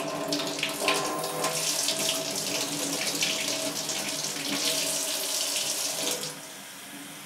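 Kitchen faucet running cold water into a small cup, a steady rush that stops when the tap is shut off about six seconds in.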